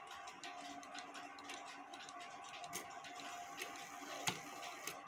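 Faint ticking and small clicks from a 1959 Smiths mantel clock movement, with one sharper click about four seconds in.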